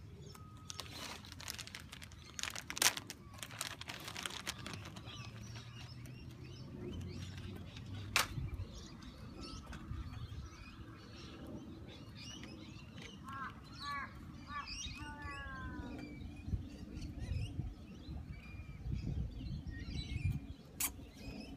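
Crinkling plastic as a small bag of cable ties is opened, with a few sharp clicks. About two-thirds of the way through, a bird chirps a quick run of short repeated notes.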